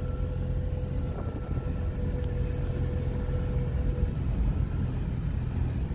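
A vehicle on the move, its low road and engine rumble running steadily. A faint steady whine sits over it and fades out about four seconds in.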